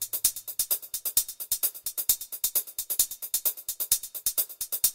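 Electronic background music: a fast, steady hi-hat-like ticking at about eight beats a second, with the bass dropping out just after the start.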